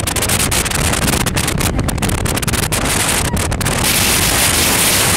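Wind buffeting the microphone of a camera on a fast-moving motorboat, with the low rumble of the boat's engine and hull running underneath. About four seconds in, the crackling buffeting gives way to a steadier rushing hiss.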